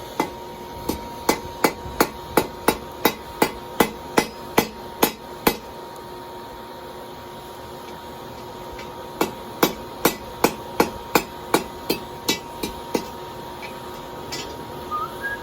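Blacksmith's hand hammer striking hot steel on an anvil, forging a fire poker: a steady run of blows about three a second, a pause of a few seconds, then another run of blows.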